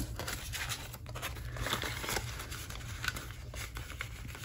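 Paper banknotes and cash envelopes rustling and crinkling as they are handled, in an irregular run of soft crackles.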